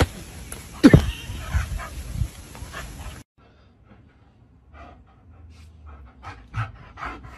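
Dogs vocalizing. A loud cry sweeps down in pitch about a second in, with a few low knocks after it. After a sudden cut a husky gives a run of short barks and yips.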